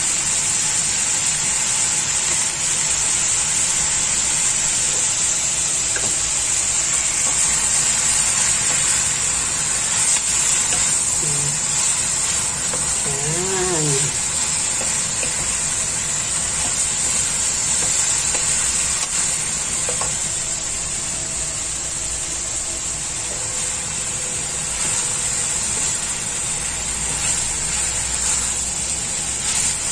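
Yellow egg noodles and vegetables sizzling steadily as they are stir-fried in a hot oiled wok.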